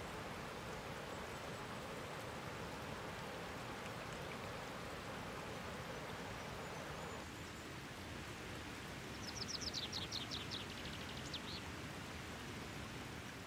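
River water rushing steadily over a weir, the rush thinning a little about seven seconds in. About nine seconds in, a songbird gives a rapid high trill of quick descending notes lasting a couple of seconds.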